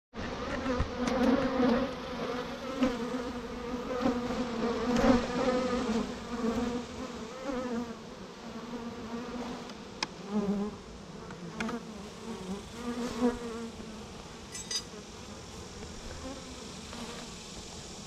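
Honeybees buzzing at an opened hive, a steady hum on one pitch with overtones, loudest over the first several seconds and then softer. A couple of sharp clicks come through about midway.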